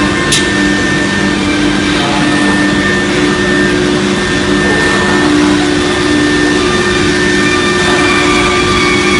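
CNC router with a 6 kW HSD spindle running: a loud, steady machining noise with several held tones, one of which shifts slightly higher about three seconds in. A short high hiss sounds about half a second in.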